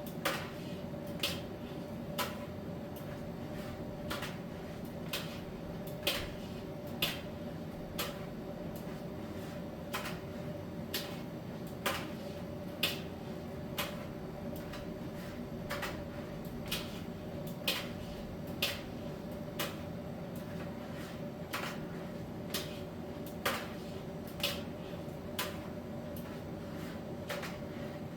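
Miele T1 heat-pump tumble dryer running mid-cycle: a steady machine hum with a held mid-pitched tone. Irregular light clicks and taps, about one or two a second, come as the load tumbles in the drum.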